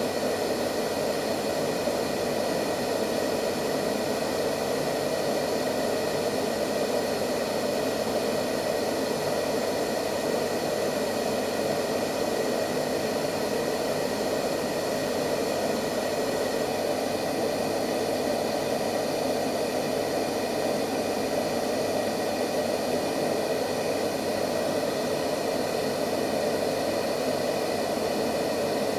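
Steady, unchanging white noise: a continuous rushing hiss with most of its weight in the lower middle range and faint steady tones above it, as used to lull babies to sleep.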